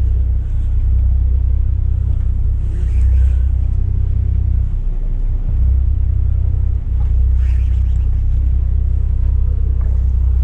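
Motorboat engine running with a low, steady rumble that dips briefly about five seconds in.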